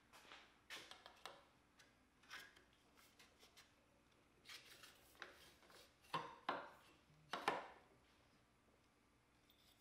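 Faint handling noises: a metal shower curtain rod sliding and scraping through a clamp head, with scattered light rubs and clicks, the loudest a little past the middle.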